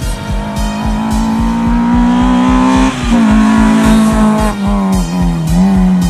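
Peugeot 306 S16 Group A rally car's 2.0-litre four-cylinder engine at high revs, climbing under acceleration, dropping sharply with a gear change about three seconds in, then pulling again and backing off near the end. Music with a steady beat plays along.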